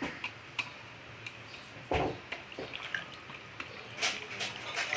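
Wet semolina-and-milk sheera being stirred with a spatula in a brass pot: soft squelching and scattered clicks of the spatula against the pot, with a louder knock about two seconds in.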